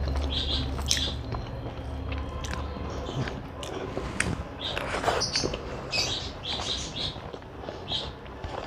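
Close-up eating sounds: chewing with wet mouth smacks and sharp clicks, irregular throughout. A low hum sits under it for the first few seconds and then stops.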